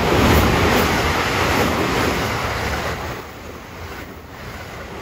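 A 12-car Shinkaisoku special rapid electric train, its rear set a 225 series, passing close by at speed: a loud rushing noise that drops away about three seconds in as the last cars go by.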